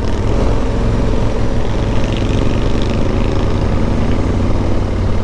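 Motorcycle engine running steadily under load, climbing a steep hill, with wind and road noise over it.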